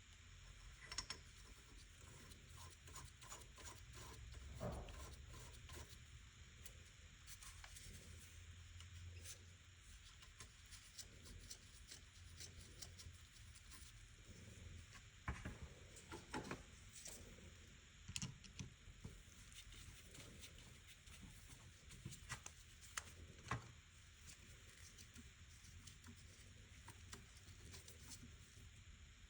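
Faint, scattered clicks and light taps of small parts and tools being handled at a workbench, with a few louder ticks among them.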